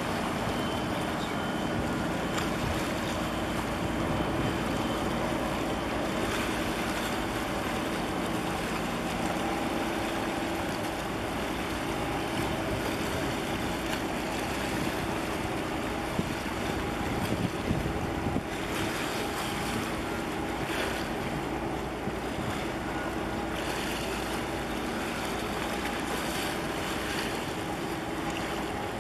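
Steady low hum of a ship's engine carried across open harbour water, under wind buffeting the microphone and the wash of water.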